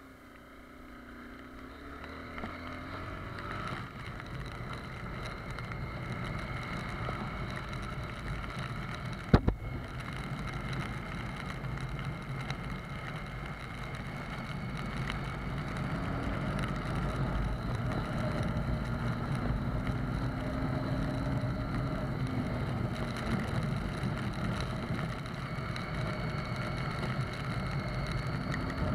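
Honda CBR250R's single-cylinder engine through its stock exhaust, pulling away and then running steadily while riding, its pitch rising near the start and again midway and the overall sound growing louder as speed builds, with a haze of wind and wet-road tyre noise. A single sharp knock sounds about nine seconds in.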